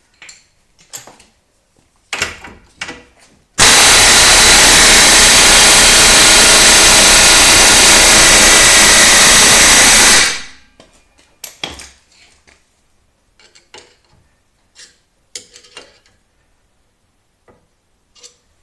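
Electric impact wrench running hard for about six and a half seconds, hammering on a ball-joint separator tool to force the front lower ball joint out of its seat. Short metallic clicks and knocks of tools come before and after it.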